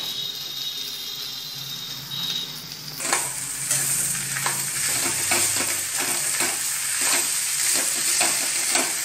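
Boiled potatoes frying and being stirred in hot oil with a steel slotted spoon in a metal pan: a steady sizzle with the spoon scraping and tapping against the pan. It gets louder and busier from about three seconds in, when the stirring begins in earnest.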